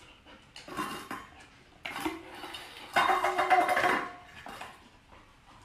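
Stainless steel dog bowls clattering and scraping on a tile floor as a golden retriever pushes and gathers them up. There are about four separate knocks and rattles, the longest about three seconds in, with a short metallic ring.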